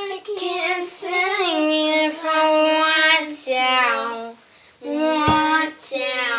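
A high voice singing long held notes with no clear words, in steps of pitch with short breaks between phrases. A single thump comes a little over five seconds in.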